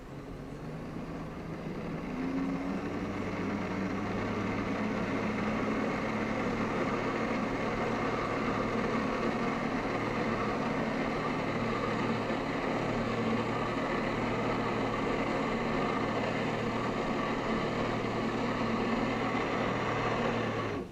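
Jet ski engine throttled up to drive a Flyboard: it rises over the first couple of seconds and then runs steadily at high power, with the rush of the water jet over it. It drops away suddenly near the end as the throttle comes off.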